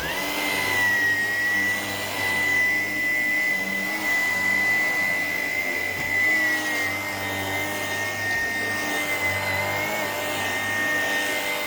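Shark PowerDetect vacuum cleaner switched on, its motor spinning up in a moment to a steady high whine and then running continuously as it vacuums the kitchen floor.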